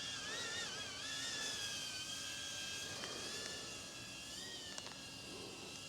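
DJI Avata FPV drone in flight, its propellers giving a steady whine whose pitch wavers slightly as it manoeuvres.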